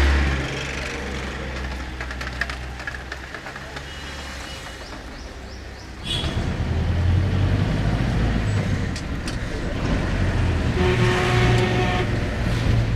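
Car engine rumble and street traffic heard from inside a moving car, getting louder about six seconds in.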